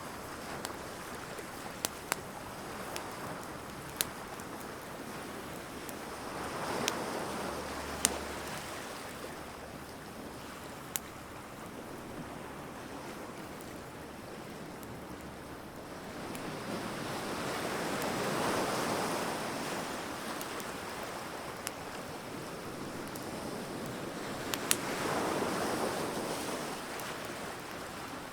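Wood fire crackling with scattered sharp pops, over a steady wash of surf. Three slow swells of waves breaking on the shore rise and fall.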